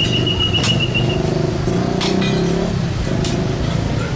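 Street traffic of motorbikes and cars with engines running close by, one engine note rising about halfway through. A thin, steady high tone sounds for about the first second.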